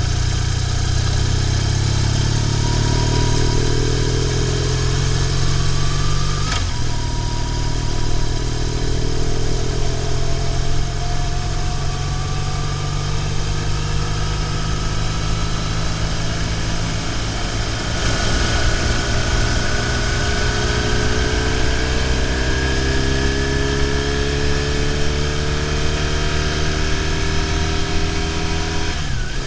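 BMW R1150GS flat-twin boxer engine running under way, heard from a bike-mounted camera together with wind and road noise. Its pitch climbs slowly, with a brief break about six and a half seconds in, then climbs again in the second half.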